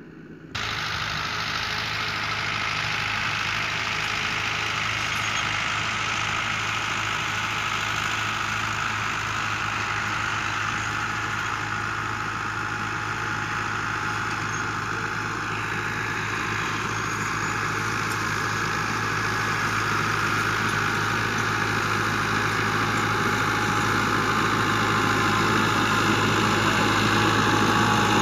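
Fiat 640 tractor's four-cylinder diesel engine running steadily under load as it pulls a rotavator through sandy soil. The sound comes in abruptly about half a second in and grows gradually louder toward the end as the tractor comes closer.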